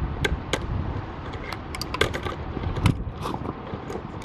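Wind rumbling on the microphone, with a scatter of irregular sharp clicks and ticks.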